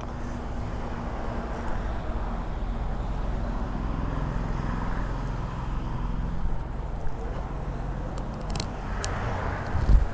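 Steady low rumble of vehicle engines from road traffic, with a couple of short clicks near the end and a loud low thump just before it ends.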